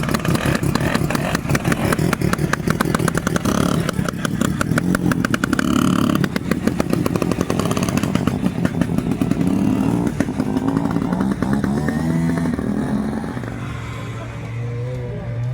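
Vintage snowmobile's two-stroke engine running loud and close, a rapid buzzing of firing pulses with the revs rising and falling, easing off about 13 seconds in.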